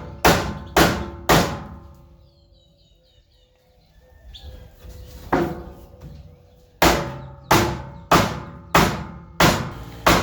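Hammer blows on steel, each one ringing: three strikes about half a second apart, a pause, a single strike, then six more at a steady pace of just under two a second. The blows most likely drive a cut length of pipe in between the headache rack's legs to push them apart. A small bird chirps briefly in the pause.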